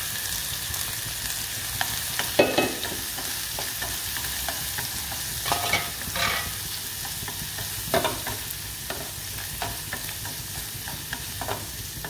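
Dried shrimp and garlic sizzling in oil in a metal pan, stirred with long chopsticks that scrape and clack against the pan several times.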